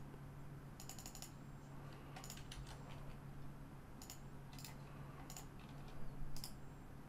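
Faint computer keyboard and mouse clicks, scattered singly and in small clusters, over a steady low hum.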